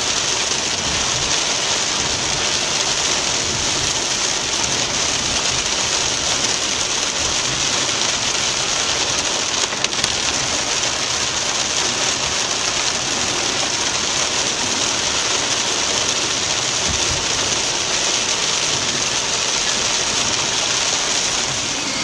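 Heavy rain on a moving car, heard from inside the cabin: a steady, loud hiss of rain on the roof and windshield. A single brief click about ten seconds in.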